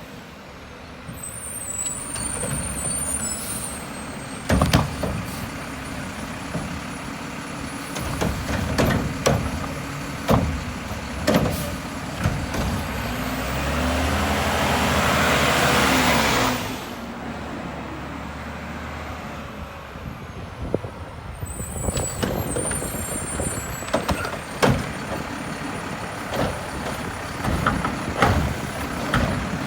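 Mack garbage truck with a Curotto Can running, with repeated sharp thumps and clatter of trash being handled, and the engine revving up for a few seconds about halfway through.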